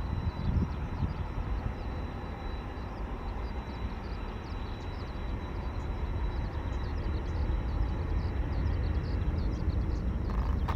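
Airbus A320-232's IAE V2500 turbofan engines at takeoff power, a deep steady rumble that grows gradually louder, with a thin high whine that fades out about halfway.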